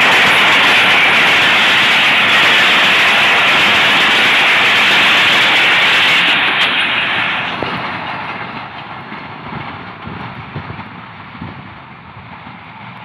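Passenger coaches of the Pakistan Railways 127 Up Mehar Express passing at speed close by: a loud, steady rush of wheels on rail. About seven seconds in the noise starts to die away as the train moves off.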